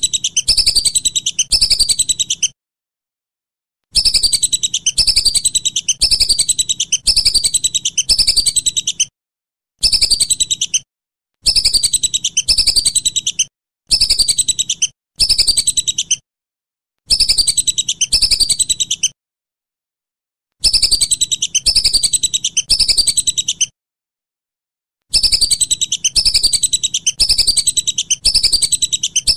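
Whistling duck (belibis) calls: runs of high, sharp whistled notes, each falling in pitch, about two a second. The runs come in phrases of one to five seconds, separated by abruptly cut, completely silent gaps.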